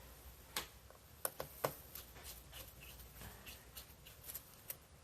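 A few faint, sharp clicks and light handling noise of small metal parts as a hard-drive bracket and its tiny screw are fitted inside an open laptop with a small screwdriver.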